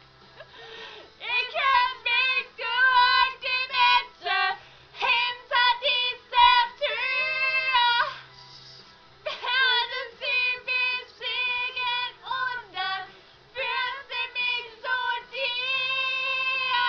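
Two young women singing loudly in high voices without words, in short wavering notes broken by a few long held ones, mimicking the song's instrumental part between choruses.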